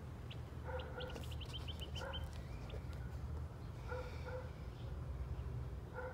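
A dog giving short, clipped barks, singly and in pairs, every second or two. A quick run of high chirps comes about a second in.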